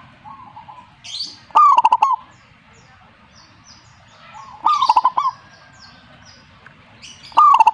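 Zebra dove (perkutut) cooing: three short, rapid staccato coos, about three seconds apart, the last at the very end. Fainter high chirps from small birds run underneath.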